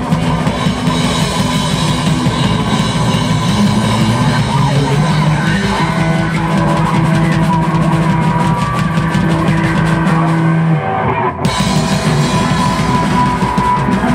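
Live rock band playing loud and fast: electric bass, drum kit and guitar.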